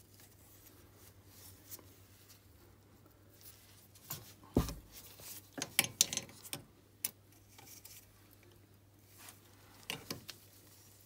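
Scattered small metallic clicks and knocks of a wrench and feeler gauge being worked at the exhaust rocker arm of a stopped air-cooled 250 cc ATV engine during a valve clearance adjustment. They come in a cluster around the middle, the loudest about four and a half seconds in, and once more near the end, with quiet handling in between.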